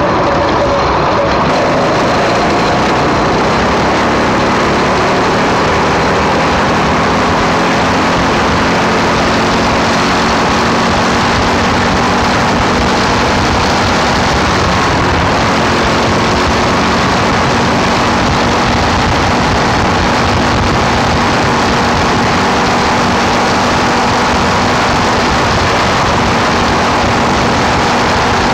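Speeco 212cc single-cylinder Honda-clone engine running steadily on a test drive, its speed drifting up and down slightly.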